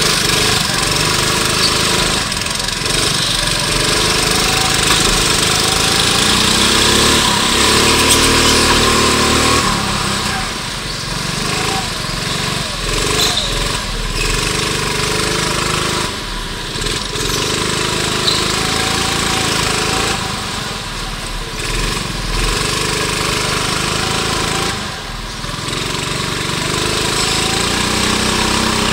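A racing kart's small petrol engine running hard, heard from on board, its pitch rising and falling as the driver goes on and off the throttle through the corners, with the engines of other karts running close by at first.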